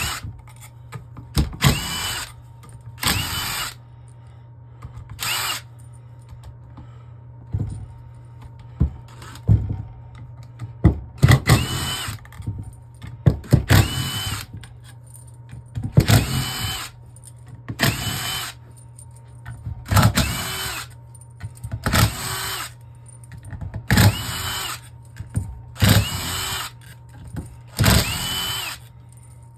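Small power tool backing out the 7 mm bolts of a 6L80 transmission valve body, one bolt at a time: over a dozen short bursts, each with a motor whine that rises as it spins up, about every two seconds.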